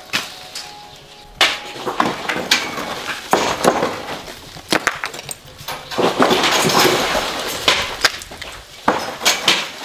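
Stones and mortar rubble being worked loose from the top of a rubble-stone wall: irregular sharp knocks and clatter of stone, with a longer stretch of gritty scraping and crumbling about six seconds in.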